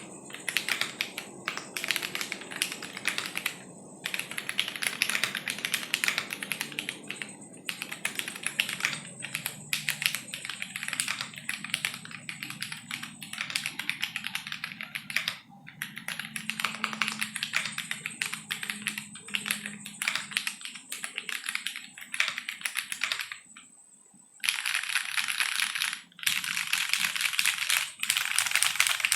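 Typing on a Ginkgo65 mechanical keyboard with stock Jwick T1 tactile switches in a polycarbonate plate, no case foam, and ABS Cherry-profile keycaps. Rapid key clacks come in runs with short pauses, stop briefly about 24 seconds in, then turn denser and louder.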